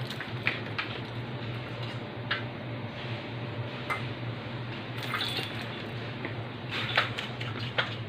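Scattered light clicks and clinks of small tools and a stepladder being handled during smoke-detector servicing, over a steady low hum.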